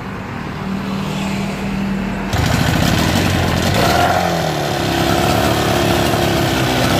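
Evinrude 12 hp two-stroke outboard motor running: steady at first, then louder and rougher from about two seconds in as the throttle is opened, and it keeps running.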